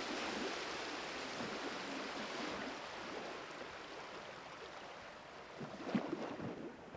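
Water ambience: a steady, even rush of water that slowly grows quieter, with a few faint pops about six seconds in.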